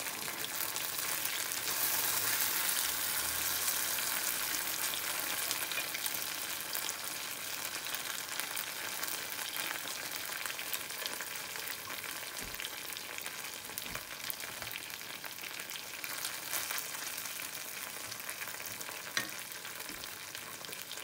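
Battered vegetable tempura, slices of eggplant among them, sizzling steadily as it fries in hot oil in a small pan. The sizzle is a little stronger early and eases slowly, with a few light clicks of chopsticks moving the pieces.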